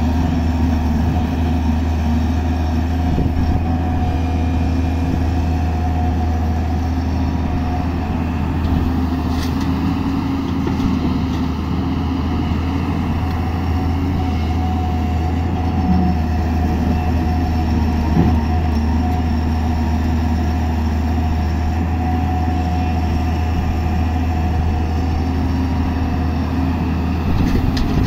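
Heavy diesel engines running steadily, from a JCB tracked excavator working beside a tipper truck: a constant low drone. Near the end, a brief rattle as a bucket of soil drops into the truck's steel bed.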